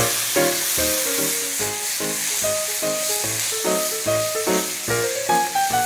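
Eggplant and tomato sauce sizzling in a frying pan on low heat as it is stirred with a silicone spatula, under background music with steady pitched notes.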